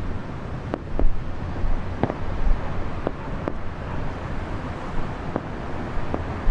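Aerial fireworks exploding: several sharp bangs, roughly one a second, over a steady low rumble, with wind on the microphone.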